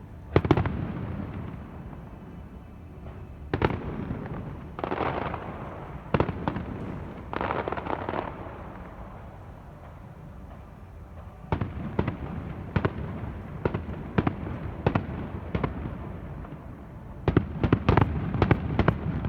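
Fireworks display: separate sharp bangs with crackling stretches between them, then a quick run of many bangs near the end.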